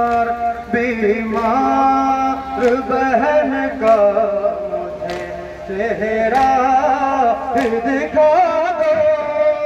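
A man chants a Muharram noha through a microphone, holding long notes that bend up and down. About every second and a quarter comes a sharp slap: mourners beating their chests (matam) in time with the recitation.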